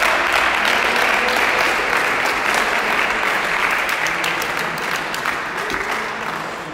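Onlookers applauding: dense clapping that slowly dies away.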